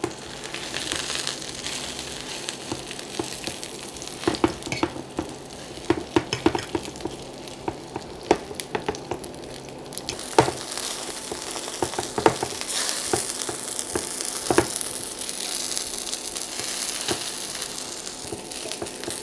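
Chicken pieces sizzling as they fry in oil in a nonstick frying pan, the sizzle growing louder in the second half as they brown. A fork clicks and scrapes against the pan now and then as the pieces are turned.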